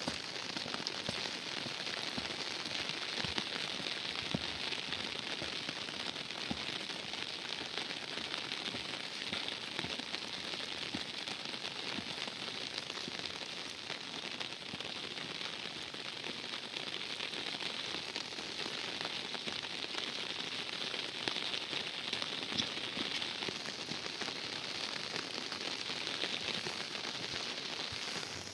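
Steady rain falling: an even hiss with a dense crackle of individual drops.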